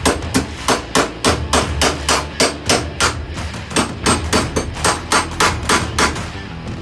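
Hammer striking steel in quick repeated blows, about three to four a second, with a brief pause partway through. The blows stop shortly before the end.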